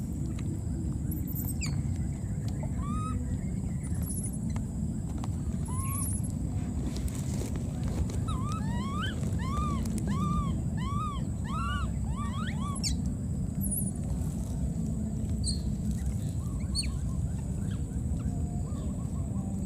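An animal calling: a quick run of about ten short, arched chirps, roughly two a second, in the middle, with a few scattered high chirps before and after, over a steady low rumble.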